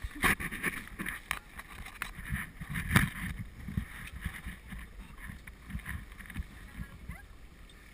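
Water rushing and slapping along a heeling Grand Surprise sailboat's hull under sail, with wind buffeting the microphone and irregular knocks, the loudest about three seconds in.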